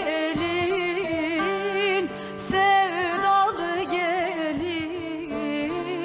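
Music: a woman singing a Turkish folk song in long, ornamented held notes with a wavering vibrato, over instrumental accompaniment.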